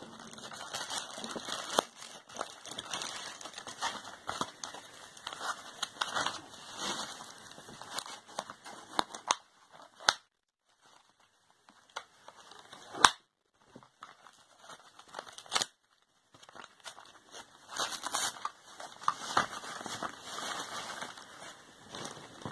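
Plastic mailer bag and foam packing wrap crinkling and rustling as they are handled and pulled open, with some tearing as the wrap is cut and peeled. The noise comes in irregular handfuls, breaks off twice for a second or two, and is punctuated by a few sharp clicks, the loudest about 13 seconds in.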